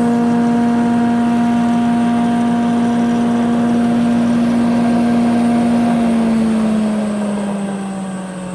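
Delta DC-580 heavy-duty planer with a 5 hp single-phase motor running steadily at speed with a strong hum. About six seconds in it is switched off and coasts down, its pitch falling as it gets quieter.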